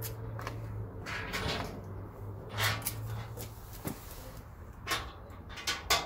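Packing tape being pulled off a handheld dispenser and torn, several short noisy pulls, with a sharp knock from handling the steel wheelbarrow tray and bolts about four seconds in. A low steady hum runs underneath.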